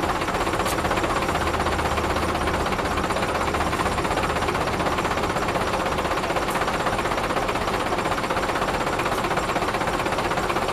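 Dump truck's diesel engine running steadily with a dense rattle, driving the hydraulic hoist that raises the loaded bed to tip out fill soil.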